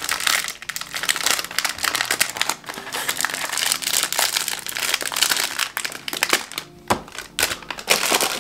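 Thin clear plastic wrapping crinkling and crackling in irregular bursts as it is pulled and peeled off a small cardboard box.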